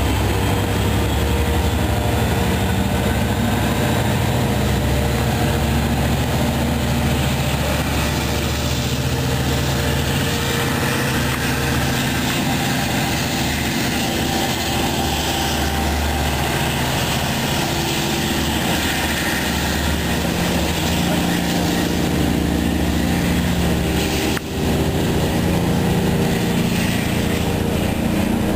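Diesel engine of an LIRR DM30AC dual-mode locomotive running with a steady low drone, with more pitched engine tones joining in the second half.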